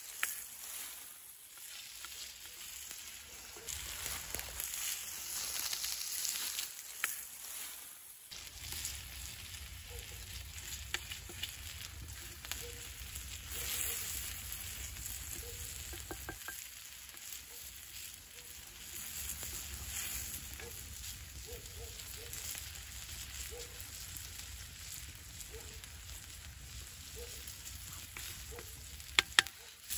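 Diced potatoes sizzling in oil on a hot flat stone over a wood fire, a steady frying hiss. A wooden spatula scrapes and taps on the stone as they are stirred, with a few sharp taps near the end.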